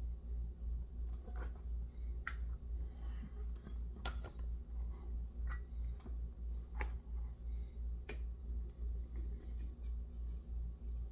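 Scattered small clicks and snips of hand tools and small parts being handled at a workbench, about half a dozen sharp clicks spread through, over a steady low hum.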